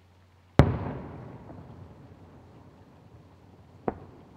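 Aerial firework shells bursting: one loud boom about half a second in that echoes and dies away over a second or so, then a second, smaller bang near the end.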